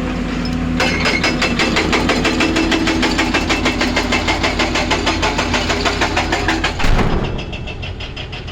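Excavator's diesel engine working hard, with a rapid, even clatter of about six beats a second over a steady low hum. Near the end comes one loud knock, and then it runs on quieter.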